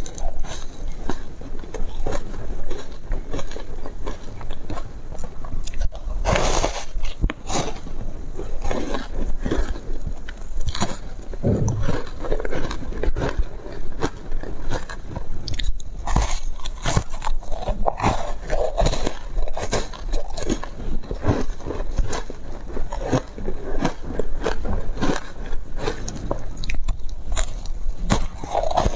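Close-miked biting and chewing of crunchy foam ice: a dense, irregular run of crisp crunches and crackles as the ice breaks between the teeth.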